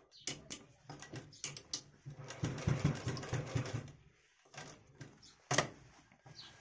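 Bharat sewing machine stitching in a short run of rapid, even strokes from about two to four seconds in, between scattered clicks and rustles of cloth being handled. One sharp click comes near the end.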